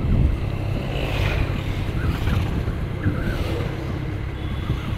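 Steady low rumble of wind buffeting the microphone of a rider on a moving TVS Ntorq scooter, with the scooter's engine and road noise underneath.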